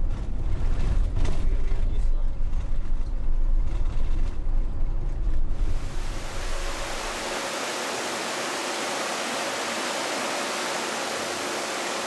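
Minibus driving, heard from inside the cabin as a deep engine and road rumble with passengers' voices. About five and a half seconds in this gives way to a steady, even rush of sea water churning past a cruise ship.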